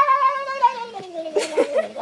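A cat yowling: one long drawn-out cry that rises and then slowly falls, followed by a shorter, wavering, broken yowl in the second half.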